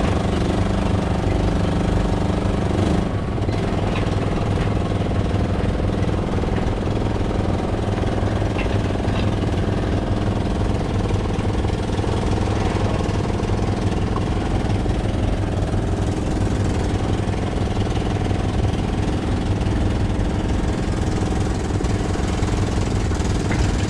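A fishing boat's engine running steadily with a low, rhythmic knock; its level eases slightly about three seconds in.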